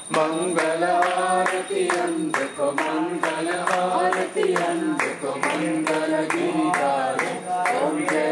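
Devotional group singing, a bhajan, with voices holding and gliding between notes over sharp beats about three a second.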